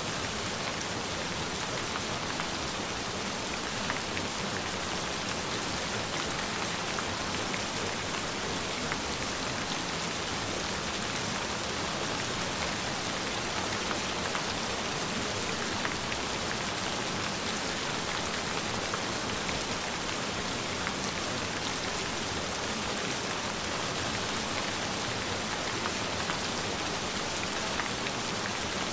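Gentle rain falling steadily: an even hiss with a scattered patter of drops.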